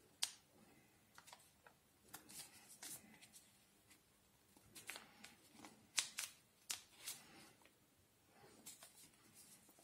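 Faint rustling and crinkling of sheet paper being folded and pressed flat by hand, with scattered small crisp clicks and crackles.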